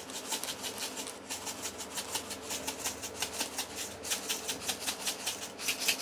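Seeds rattling in a handheld shaker jar, shaken in quick even strokes of about five a second to sprinkle them.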